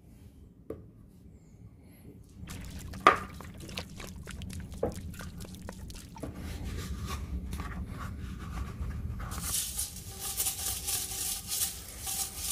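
Liquid paint stripper poured from a metal can onto a sledgehammer head in a metal pan, splashing and dripping with many small ticks. About nine seconds in, it gives way to a toothbrush scrubbing the wet, stripper-coated head, a fast scratchy bristle rubbing.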